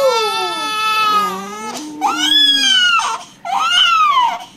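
Newborn baby crying in three long wails, each rising and then falling in pitch, with short breaths between them.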